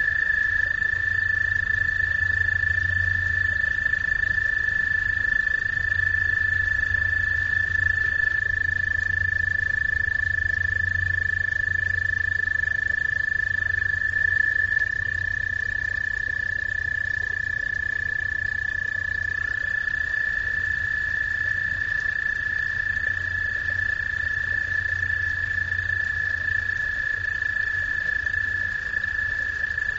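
Chorus of frogs calling: a steady, high trill with no breaks, its pitch stepping a little where callers overlap, over a low hum.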